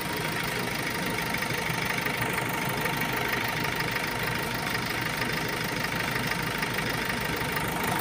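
Kia K2500 diesel engine idling steadily while air is being purged from its fuel system.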